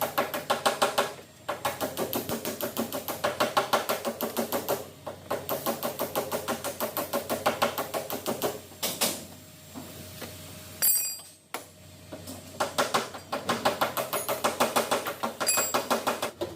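Rapid light tapping on the Toyota Camry's sheet-metal body panel, about six or seven taps a second, in long runs with short breaks and a longer pause midway. This is typical of tapping down the high spots of a dent with a knockdown tool during paintless dent repair.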